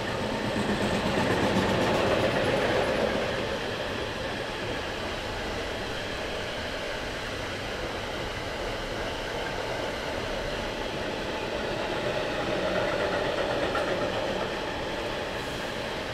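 Train running past on the line: a continuous rumble and rush of wheels on rails with some clickety-clack, swelling louder twice, about a second in and again near the end.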